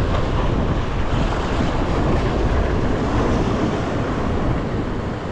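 Wind buffeting the microphone over the steady wash of sea waves breaking against coastal rocks.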